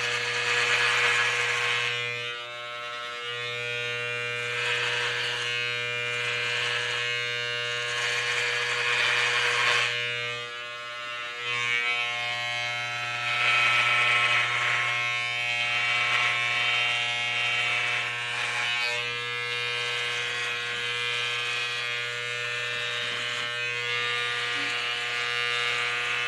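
Corded electric hair clippers running with a steady buzz, with rasping bursts as the blades cut through short hair on the scalp. The hum dips briefly a couple of times.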